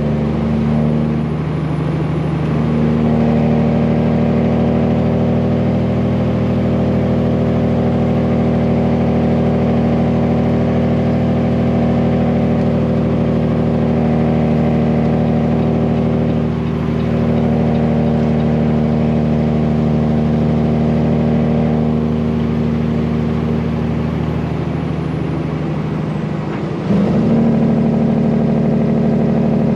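Semi truck's straight-piped Cummins diesel engine running steadily under way, pulling at an even engine speed. The engine note breaks briefly three times, about a second and a half in, around the middle and near the end.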